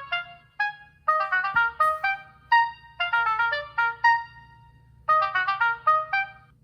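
LG G Flex phone ringtone playing: a short melody of quick, fast-fading pitched notes in repeating runs with brief pauses between them.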